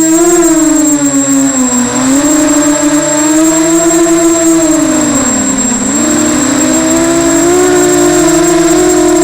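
Brushless motors and propellers of a small FPV racing multirotor whining, the pitch rising and falling with the throttle and dipping briefly about five seconds in. A thin, steady high-pitched tone runs underneath.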